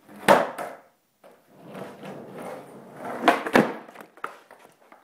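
Skateboard on a carpeted floor: a hard wooden clack just after the start, then the wheels rolling. About three and a half seconds in come two sharp clacks about a third of a second apart, the tail popping and the board landing a trick.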